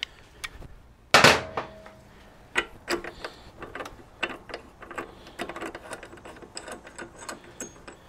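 A 3/4-inch-drive ratchet on the 1 7/16-inch rear axle nut of a Harley-Davidson Softail: a loud ringing metal clank about a second in, then a run of irregular ratchet clicks as the nut is worked loose.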